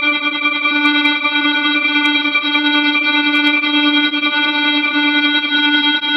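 Emergency alert alarm tone: a harsh, steady electronic drone made of several tones at once, held without a break.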